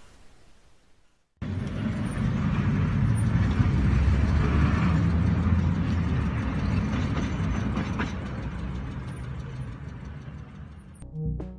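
Vehicle and road rumble on a dashcam recording, cutting in suddenly after a brief silence and fading slowly. Music notes start near the end.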